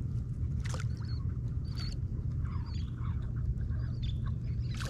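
Baitcasting reel being cranked to bring in a hooked fish, faint under a steady low rumble, with a few faint high squeaky chirps.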